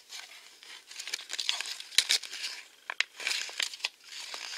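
Paper collector's checklist from a toy blind bag crinkling and rustling as it is handled close to the microphone, with a few sharp crackles, the loudest about two seconds in.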